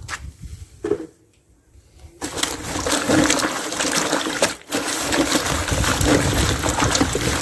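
Water running and splashing as fresh pawpaw leaves and aloe vera stems are washed, starting about two seconds in after a brief near-silent gap.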